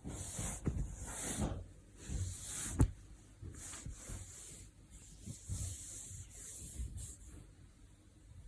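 Rubbing and rustling against the microphone in irregular patches, with low bumps and one sharp knock just before three seconds in, dying down near the end.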